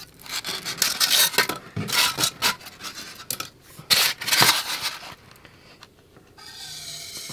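Polystyrene foam scratching and scraping in a quick series of short strokes as it is trimmed with a hot-wire foam cutter and handled, stopping about five seconds in.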